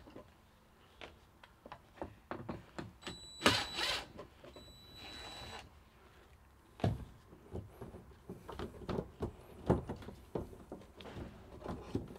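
Cordless DeWalt impact driver running in short bursts with a high whine about three and a half seconds in, backing out the screws that hold wire connectors in place. After that, scattered clicks, knocks and rustles of wires and plastic connectors being handled and pulled.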